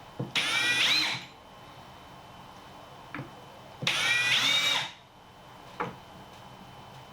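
Electric power drill run in two short bursts of about a second each, a few seconds apart, the motor rising in pitch as it spins up each time, with a light click between them.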